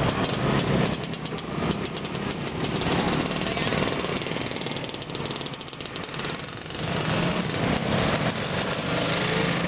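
Many motor scooter engines, Vespas among them, running together at close range as the pack pulls away. Their quick ticking beat and hum ease off for a couple of seconds in the middle, then rise again.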